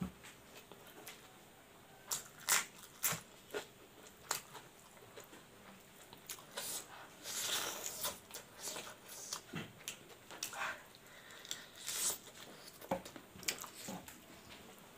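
Close-up eating sounds: chewing and lip smacking, heard as irregular wet clicks and smacks, as someone eats rice and smoked pork with their fingers.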